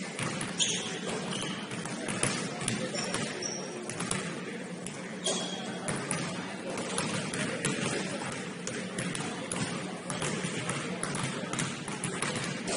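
Several basketballs bouncing and thudding on a hardwood gym floor during shooting warm-up. Irregular knocks come throughout, with a few short high squeaks, in a large gym.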